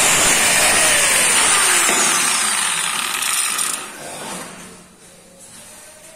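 Handheld angle grinder with a polishing pad, working the edge of a granite strip, then switched off: its whine falls in pitch as it spins down, and the noise dies away about four seconds in.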